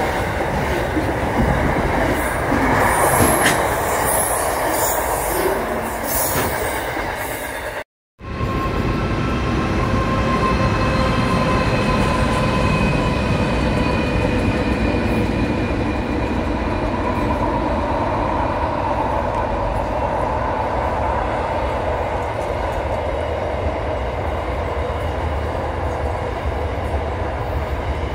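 Freight wagons passing close by, their wheels clattering and knocking on the rails. After a short break, a diesel-hauled freight train passes further off: a low rumble under long, slowly wavering wheel-squeal tones.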